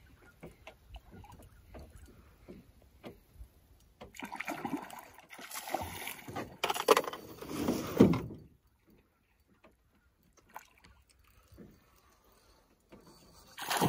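Water splashing and sloshing for about four seconds, starting about four seconds in: a hooked coho (silver) salmon thrashing at the surface beside the boat. A few faint clicks come before it.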